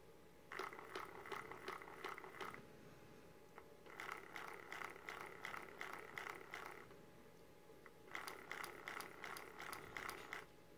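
Two small stepper motors turning a clock's googly eyes, faint, in three runs of two to three seconds each with short pauses between: a buzzy whir with rapid ticking. This is the clock's 'go crazy' mode, which spins each eye in a randomly picked direction.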